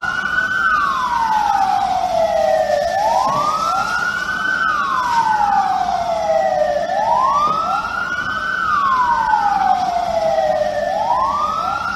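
Emergency vehicle sirens wailing, a slow rise and fall in pitch that repeats about every four seconds. Two or more overlapping wails run slightly out of step.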